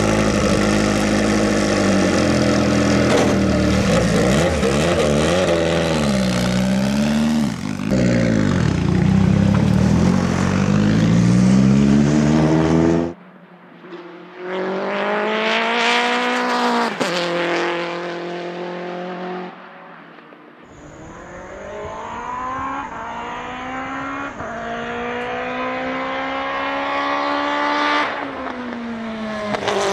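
Engine of the HKS Toyota 86 time-attack car, an FA20 flat-four enlarged to 2.5 litres and turbocharged to about 800 hp, running loud with its pitch wavering and dipping as it moves off the pit lane. After an abrupt cut it passes at speed, pitch rising then falling, and after another cut it accelerates hard with a long rising pitch and a drop at a gear change near the end.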